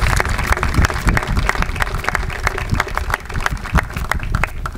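Audience applauding: many hands clapping at once, thinning out toward the end.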